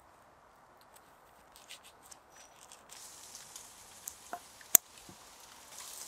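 Light rustling and scattered small clicks from gloved hands working an orange rope through a hole in a log with small tools, with one sharp click about three-quarters of the way through. A footstep crunches in dry leaves at the very end.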